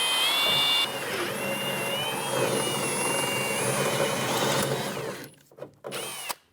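Electric drill running, its bit drilling out the rivet that holds an interior door handle, with a whine that shifts in pitch as the bit bites. It stops about five seconds in, and a few short clicks follow.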